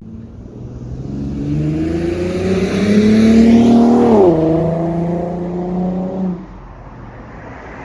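2015 Infiniti Q50 with a REV9 axle-back exhaust accelerating. The exhaust note climbs for about three seconds, drops suddenly at an upshift about four seconds in, carries on at the lower pitch, then fades as the car eases off.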